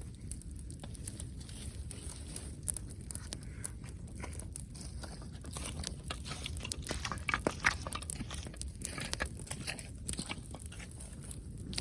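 Wood campfire crackling, with irregular sharp pops and snaps that come thicker and louder a little past the middle.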